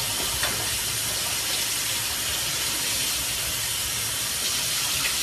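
Kitchen faucet running steadily into a stainless steel sink while a glass bottle is rinsed under the stream.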